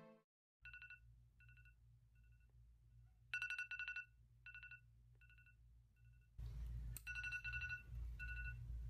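Smartphone alarm going off: a repeating pattern of short electronic beeps, softer at first and louder in the middle, with a low hum coming up about six seconds in.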